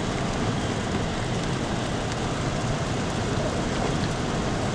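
Car driving over snow- and slush-covered streets: a steady rush of tyre and road noise.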